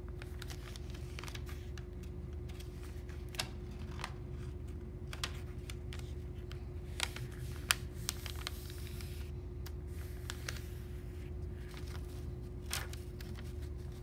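A sheet of paper being folded by hand into a paper airplane, its sides brought down to the centre crease: scattered crisp rustles and clicks as fingers press the folds flat, over a steady low hum.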